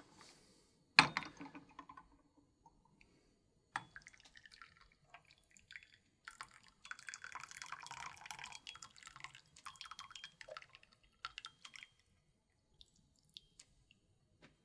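Tea poured from a small glass brewing vessel into two small porcelain cups, trickling in a thin stream with short breaks and a few drips, from about six to twelve seconds in. A sharp clink about a second in is the loudest sound.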